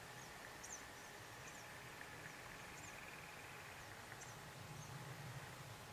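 Quiet outdoor background with faint, short, high-pitched chirps from a small animal, about two a second at uneven spacing.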